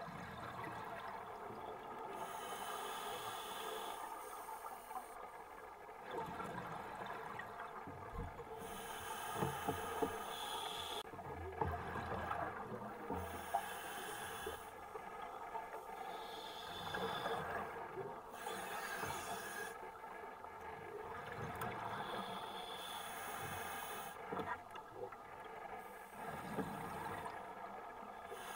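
Scuba regulator breathing underwater: a hissing inhale about every six seconds, alternating with rougher gurgling stretches of exhaled bubbles, over a steady underwater hum.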